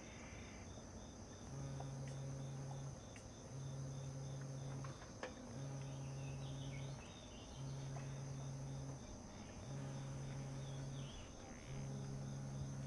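A mobile phone vibrating for an incoming call: a low buzz about a second and a half long, repeating every two seconds, six times, starting about a second and a half in.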